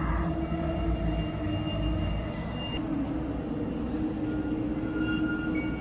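Ambient drone soundtrack of a projection art installation: sustained steady tones over a low rumble, some higher notes dropping out about three seconds in and new ones coming in near the end.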